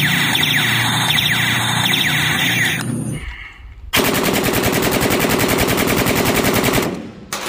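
A battery-powered toy AK-47 gives out its electronic gunfire effect, a run of repeated falling zaps, which stops about three seconds in. After a short lull, a real AK-pattern rifle fires a long burst of automatic fire for about three seconds.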